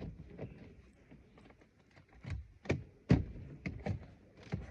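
Plastic dashboard trim being handled and pushed into place: a run of sharp knocks and clicks, the loudest about three seconds in.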